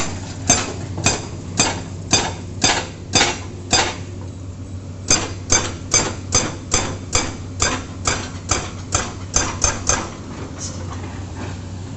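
Excavator-mounted hydraulic breaker hammering the road surface: a steady series of sharp, metallic blows about two a second. It pauses briefly about four seconds in, then resumes slightly faster and stops about ten seconds in. A steady low engine hum runs underneath.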